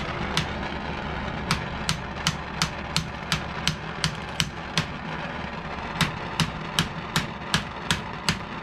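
Hand hammer peening the hot end of a dagger's steel tang over the pommel, driving the pommel down onto the wooden handle: a steady run of sharp metal strikes, nearly three a second, with a pause of about a second near the middle. A steady rumbling noise runs underneath.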